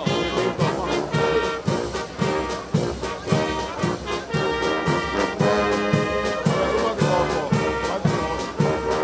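A small brass band of trumpets, trombones, a sousaphone and a bass drum playing a tune, the drum marking a steady beat of about two strokes a second.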